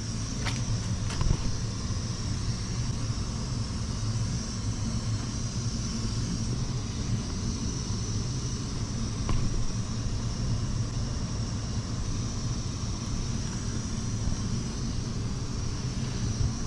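Gas burner of a Weil-McLain EGH-125 steam boiler firing: a steady rumble with a constant low hum and a faint high hiss.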